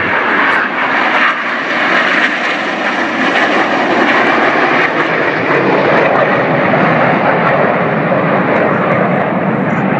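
A formation of BAE Hawk T1 jets flying past with a loud, steady jet noise, growing deeper in the second half.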